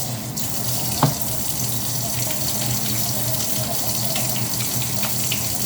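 Kitchen tap running steadily into the sink while small stove parts are washed under it, with a single sharp knock about a second in.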